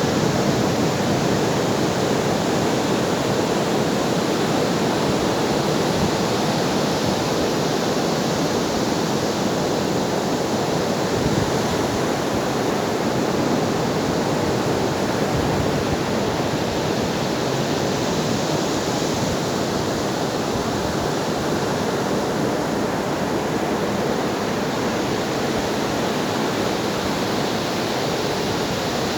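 Ocean waves breaking as a continuous, steady wash of surf.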